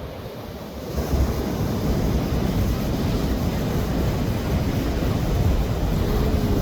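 Sea waves washing onto the shore, with wind rumbling on the microphone; the sound gets louder about a second in and then stays steady.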